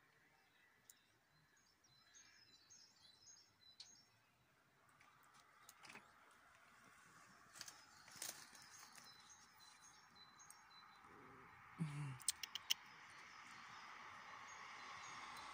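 Quiet garden ambience: faint high chirps of small birds in the first few seconds, then a rushing noise that grows steadily louder through the second half. A few sharp clicks come about twelve seconds in.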